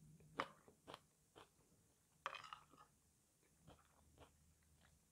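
Faint mouth sounds of eating: chewing with a few short crisp clicks about half a second apart, and a brief crunch a little over two seconds in, from a mouthful of rice pilaf and a fresh green pepper.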